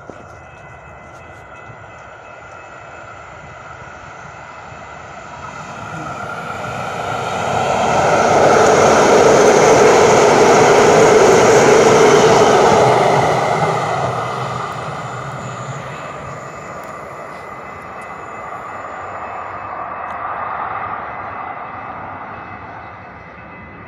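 CTrain light-rail train passing close by on its track. The sound swells over several seconds, is loudest for a few seconds in the middle, then fades as the train moves away.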